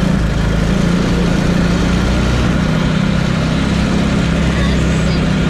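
A vehicle's engine running steadily as it drives along a dirt road: a low, even drone.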